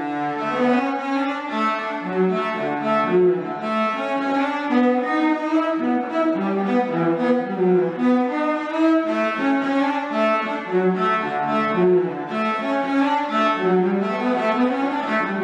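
Two cellos bowed together as a duet, playing a traditional tune in a steady run of short notes.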